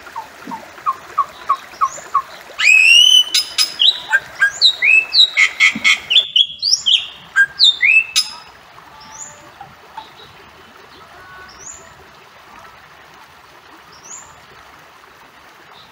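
Bali myna calling: a loud run of quick, upward-sliding whistled calls from about two and a half seconds in until about eight seconds. Softer short repeated notes come before it and faint high rising whistles after, over a steady background hiss.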